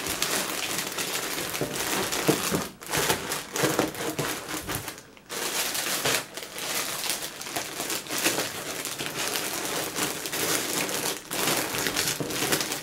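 Clear plastic bag crinkling as it is folded over and pressed down into a cardboard box, with a couple of brief pauses.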